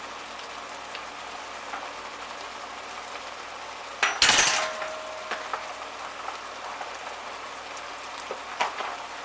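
Tomato and mushroom sauce sizzling steadily in a frying pan. About four seconds in there is one loud clatter of a metal utensil against the pan, with a brief ringing after it.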